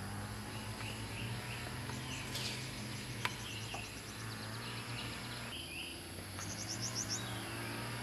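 Small birds chirping in short, quick series over a steady low hum, with a single sharp click about three seconds in.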